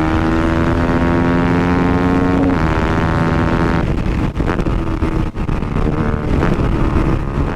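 Simulated big-motorcycle engine sound played through the speaker inside a slip-on exhaust fitted to a 50cc bike, following the bike's revs. It holds a steady engine note, steps down in pitch about two and a half seconds in, then turns choppy and uneven with short breaks before stopping at the end.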